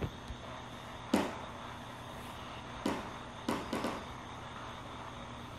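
Spirit box radio sweep during a pause for answers: a few short, sudden bursts of radio static and fragments, each falling in pitch, over a faint steady hum.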